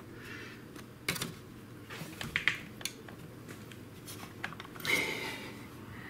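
Plastic clicks and knocks from a Miele vacuum cleaner's plastic body and top cover being handled and pressed while it is fitted back on, with a brief louder rustle about five seconds in.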